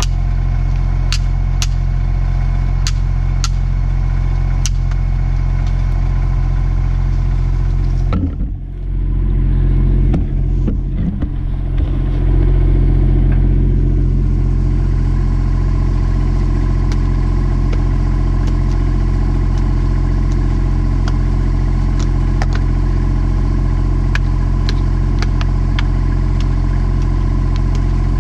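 Backhoe's diesel engine idling steadily, with light metallic taps from a hammer and punch on the bucket teeth. About eight seconds in the engine sound briefly dips and then surges.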